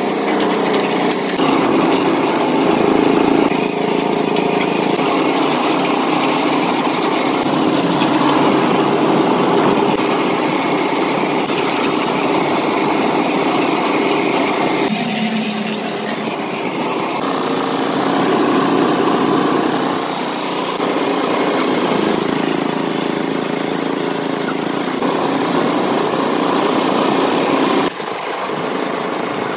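Small engine of a portable drum concrete mixer running steadily under load while the drum turns, with some knocks and clicks on top; the level drops a little near the end.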